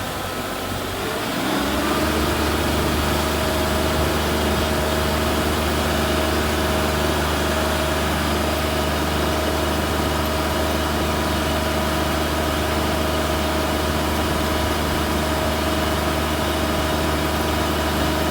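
Combine harvester's engine rising in pitch and loudness over about the first two seconds as it speeds up, then running steadily.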